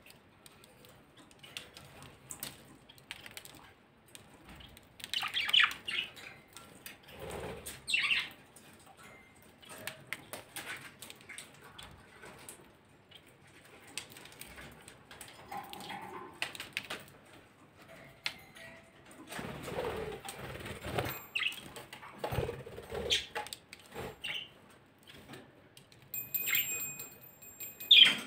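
Budgerigars pecking at a millet spray held in a hand: scattered small clicks of seeds being cracked, rustling and a flutter of wings, with a short chirp near the end.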